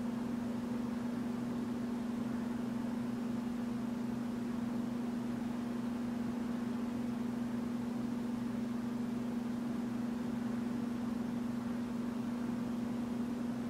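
A steady electrical hum with an even hiss underneath, unchanging throughout.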